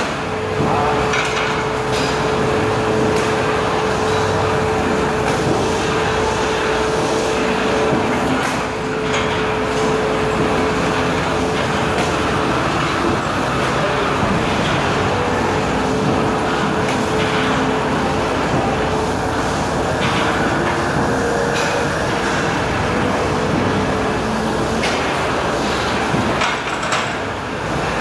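Gym background noise: a steady loud machine rush with a whining tone that fades out around the middle and comes back, and a few short knocks.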